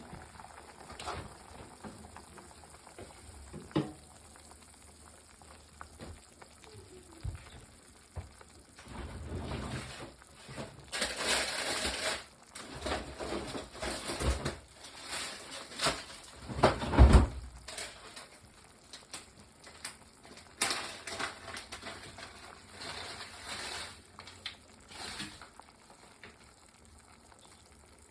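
Vegetables and meat cooking in a pan: sizzling, stirred now and then, with scattered knocks of a utensil against the pan. The busiest, loudest stretch falls in the middle, with the sharpest knock just after it.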